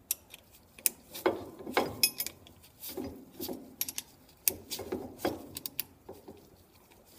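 A steel hex key turning in socket-head bolts as they are tightened down on a metal lathe compound's clamping ring. It makes irregular light metallic clicks and clinks, a few to a second.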